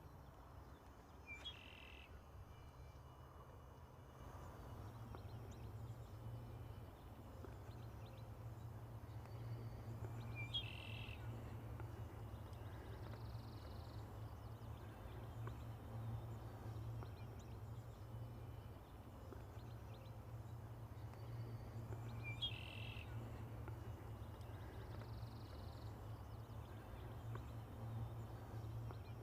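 Quiet outdoor ambience: a steady low hum, with a short high chirp three times, about ten seconds apart.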